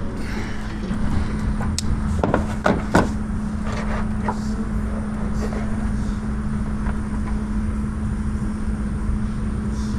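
A steady low mechanical hum over a rumble, with a few sharp clicks and knocks between about two and three seconds in.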